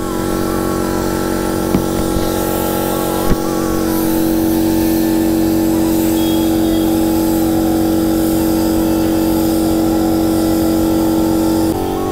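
Compressed-air spray gun hissing as it sprays paint, over the steady hum of the air compressor that feeds it. Two light clicks come about two and three seconds in, and the hum drops just before the end.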